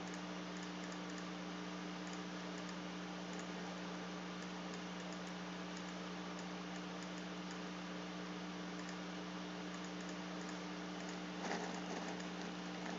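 A steady low hum and hiss with faint, scattered clicks from a computer being operated.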